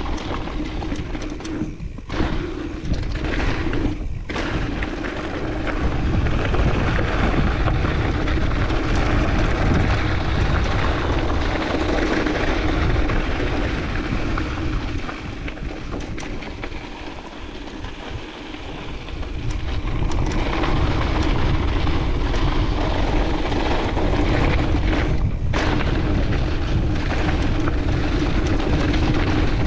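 Mountain bike descending a dirt trail: tyres rolling over the ground and the bike rattling, with wind rushing over a chest-mounted GoPro's microphone. The noise eases off for a few seconds about halfway through, then picks up again.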